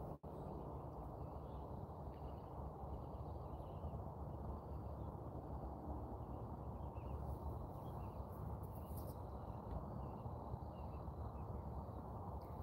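Faint outdoor ambience: a steady low rumble with scattered faint bird chirps, broken by a split-second dropout right at the start.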